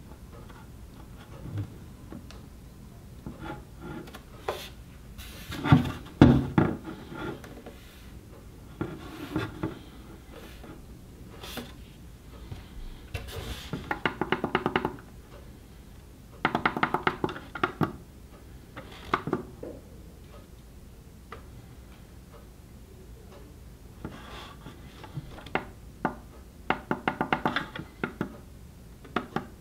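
Buttons on a Philips Wake-up Light being pressed and the plastic lamp handled: scattered clicks and knocks, with the loudest thumps about six seconds in and several short runs of rapid clicking later on.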